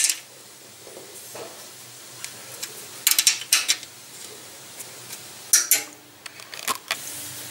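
Ring spanner clicking and clinking on the small 8 mm nuts of a bicycle frame lock as they are tightened: a few sharp metal clicks, bunched about three seconds in and again near six seconds.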